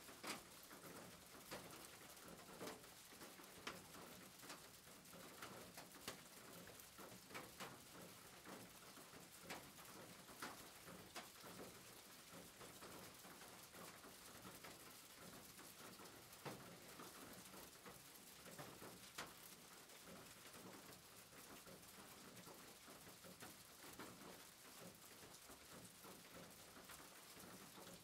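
Faint rain falling on a roof: a steady hiss with irregular drops tapping sharply.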